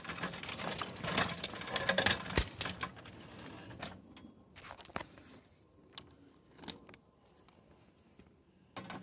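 Rattling and clicking of a gas pressure washer being wheeled to a new spot, thick for about four seconds, then a few scattered knocks.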